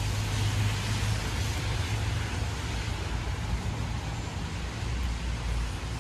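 Heavy rain falling steadily, an even hiss on wet paving and puddles. Under it, road vehicles passing: a deep engine hum fades over the first couple of seconds and a low rumble rises and passes about four to five seconds in.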